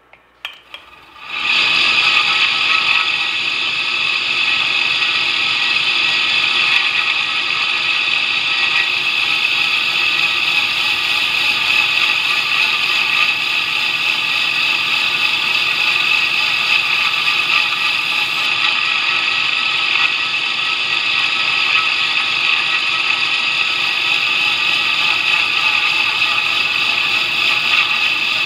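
2x72 belt grinder running a Scotch-Brite surface conditioning belt. It comes up to a steady loud run about a second in, with a steel knife blade's bevel held against the belt and being ground.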